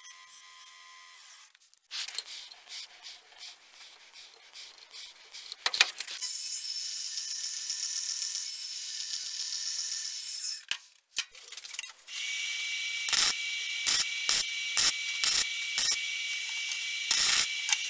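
A run of metalworking machines: briefly a belt grinder grinding a steel blade, then a bandsaw cutting through a strip of 1095 steel for about four seconds. After a short pause comes an electric welder welding an extension onto the tang in short runs, with the arc starting and stopping several times.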